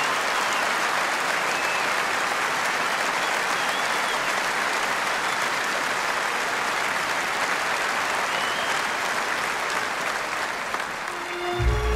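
A large concert audience applauding steadily. About half a second before the end, the orchestra starts to play.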